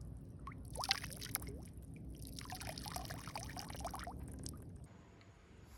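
Water pouring and dripping in two short spells of small splashes, fading out about a second before the end.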